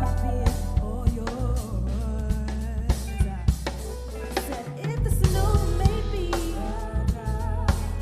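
Live band playing a soul song: drum kit hitting a steady beat over a deep sustained bass, with keyboards and sung vocals, including backing singers.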